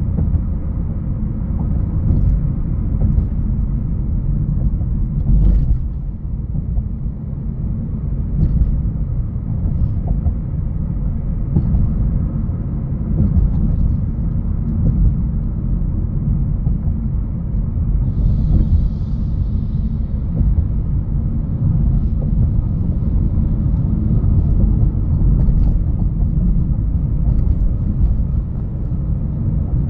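A 2021 Honda HR-V Sport AWD driving: a steady low rumble of engine and road noise, with a few light clicks and a brief faint hiss about two-thirds of the way in.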